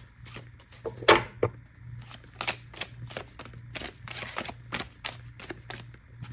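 A deck of tarot cards being shuffled by hand: a quick, uneven run of soft card clicks and flicks, with one sharper snap about a second in, as the reader shuffles to draw a clarifying card.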